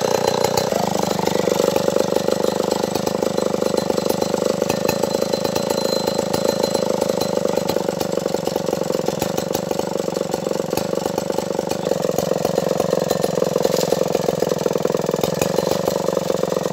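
Stihl 070 two-stroke chainsaw engine running steadily at an even speed, its pitch settling a little in the first second.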